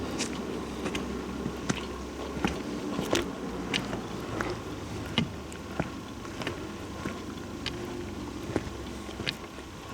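Footsteps on a forest trail, with irregular sharp clicks and snaps about one or two a second.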